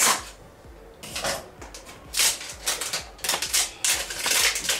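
Scissors snipping at a paper label on a plastic squeeze bottle, then the label being cut and peeled off. A sharp snip opens it, and from about two seconds in comes a run of irregular crackling and tearing scrapes.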